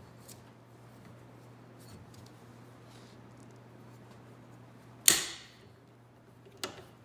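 Hand pop-riveter working a steel rivet through a snowmobile slide rail: faint ticks, then one sharp loud snap about five seconds in and a lighter click near the end, over a faint steady hum.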